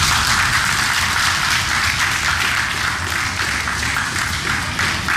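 Spectators applauding, a steady dense patter of clapping hands.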